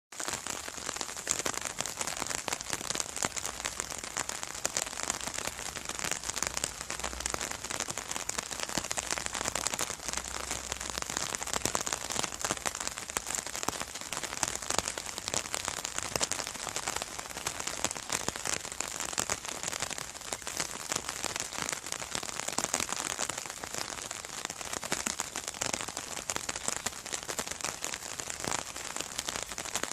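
Steady rain pattering on an umbrella's fabric canopy: a dense, unbroken stream of many small drop ticks.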